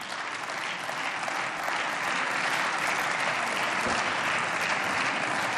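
Applause from members of parliament: many people clapping. It swells over the first couple of seconds and then holds steady.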